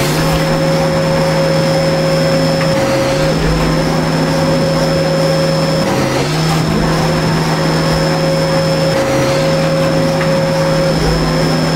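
Simulated CNC milling machine running, a sound effect from the virtual machine software in auto mode: a steady motor hum and whine over a hiss, its pitch dipping briefly about every three seconds.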